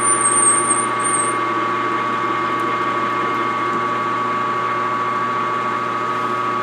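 Manual metal lathe running steadily with a constant whine while turning a 304 stainless steel shaft. A high warbling squeal sounds for the first second and a half, then stops.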